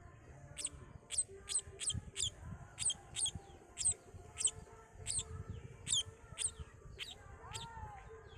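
Small birds chirping: a quick series of short, sharp, high-pitched chirps, about two a second, each dropping in pitch. A lower, slower curved call comes in near the end.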